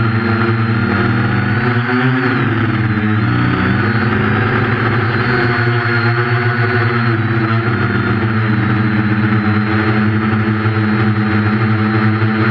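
Quadcopter's four 1200kv brushless motors and 8.5-inch propellers whining steadily in flight. The pitch dips and rises a couple of times with throttle changes.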